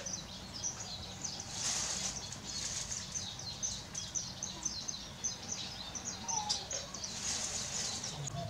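Small birds chirping and twittering: many quick, high, falling chirps in a busy, overlapping chatter, swelling twice.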